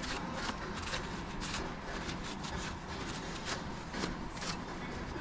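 Gloved hand and rag rubbing and scraping around the metal hub of a motorcycle rear wheel, a run of short, irregular scrapes and clicks.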